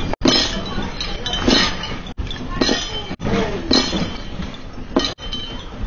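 Household objects and glassware rattling and clinking as a house shakes in a strong earthquake, over a continuous rumble, with several louder clatters about a second apart. The sound cuts out for an instant a few times.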